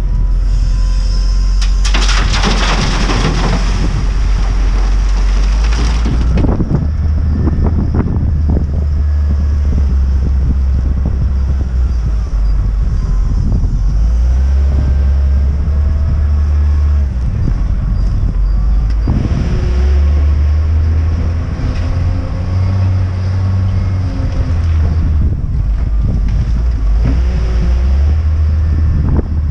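Volvo L60E wheel loader's diesel engine running and revving up and down as the loader manoeuvres. From about two to six seconds in, gravel pours out of the raised bucket into the trailer with a loud rushing rattle.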